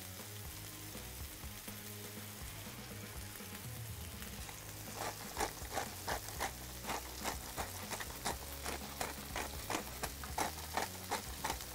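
Smashed beef burger patties sizzling steadily in oil on a hot flat-top griddle, under background music with a steady beat that comes in about halfway through.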